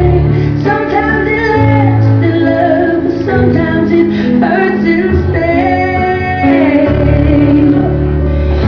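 Pop song with a woman singing over steady bass and backing music.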